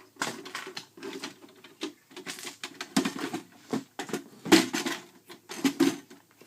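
Irregular clicks, taps and knocks of hard plastic parts being handled as the Aquabot Turbo's pump motor is worked free of its plastic housing, with the loudest knocks about four and a half and six seconds in.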